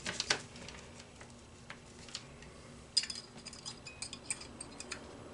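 Light metallic clicks and clinks of small carburetor parts being handled: the brass float and its hinge being fitted back at the needle and seat of an Edelbrock carburetor. A few taps come right at the start, then a quicker run of clicks from about three seconds in.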